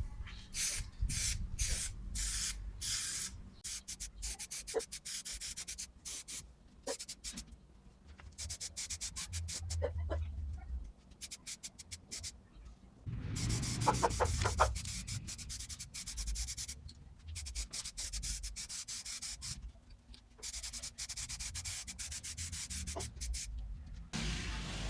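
Hand sanding on the steel tool box: sandpaper scraping over metal in quick, irregular back-and-forth strokes with short pauses between runs.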